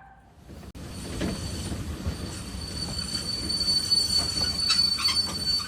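Train sound effect: a train rumbling along with a steady high wheel squeal, starting about half a second in and growing louder.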